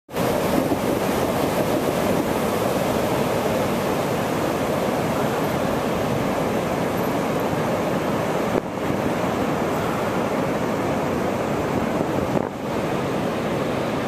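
Strong storm wind rushing over the microphone together with breaking ocean surf: a loud, steady roar of noise. It dips briefly twice, about eight and a half and twelve and a half seconds in.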